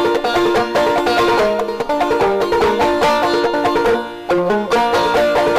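Background music in a bluegrass style, led by fast-picked banjo, with rapid plucked notes throughout.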